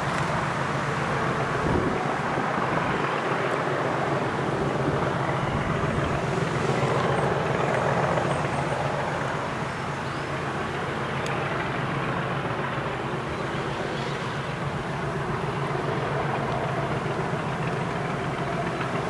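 A pair of Class 37 diesel locomotives, English Electric V12 engines, working hard uphill: a loud, continuous racket that holds steady with a slight dip midway. The leading engine of 37038 coughs and splutters, which the uploader takes for major fuel starvation.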